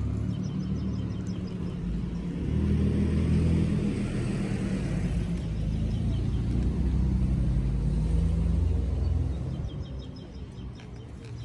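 Self-balancing hoverboard rolling over rough concrete: a low rumble from its wheels and hub motors that swells a couple of seconds in and eases off near the end.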